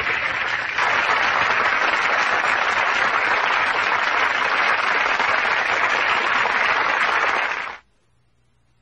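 Sitcom studio audience applauding, swelling about a second in, then cut off abruptly near the end.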